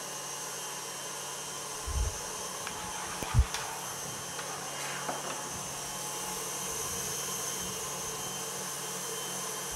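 Steady whirring hum of an appliance motor or fan, with a few soft low knocks; the loudest knock comes about three and a half seconds in.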